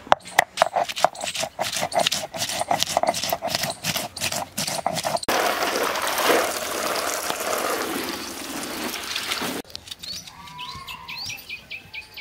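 Stone grinder (sil-batta) pounding green chillies and garlic on a flat grinding stone: a quick run of stone-on-stone knocks, several a second, for about five seconds. Then about four seconds of splashing water, and faint bird chirps near the end.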